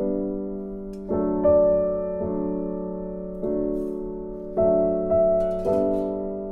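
Background piano music, with chords struck about once a second that ring and fade.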